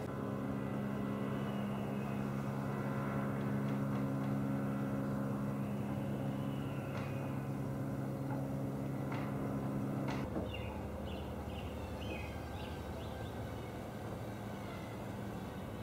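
Motorboat engine running with a steady hum across the water, which cuts off suddenly about ten seconds in, leaving a lower rumble and a few short high chirps.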